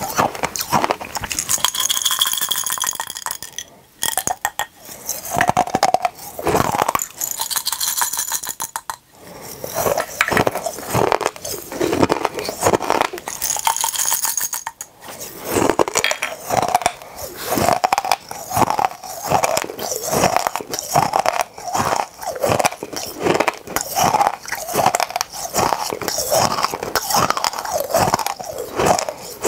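Close-miked crunching and chewing of mini hard candies: rapid, irregular crackling crunches with brief pauses.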